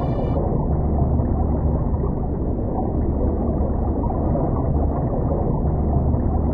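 A steady deep rumbling drone with a constant low hum beneath it, dull and muffled with no high sounds, like a sound-designed sea or underwater ambience.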